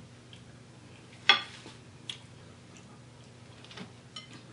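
Quiet eating-by-hand sounds: a few short, sharp clicks and ticks, the loudest about a second in, as fingers pick food out of a bowl.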